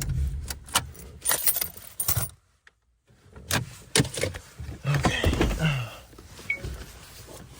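Car keys jangling and clicking, with a run of sharp clicks and knocks. A low rumble under the first two seconds stops, and there is a short silent gap before the jangling resumes.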